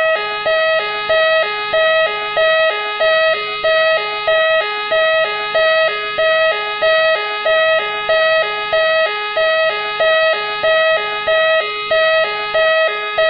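Machine X's police siren sounding steadily, a two-tone siren stepping back and forth between a high and a lower note, each high-low pair lasting a little under a second.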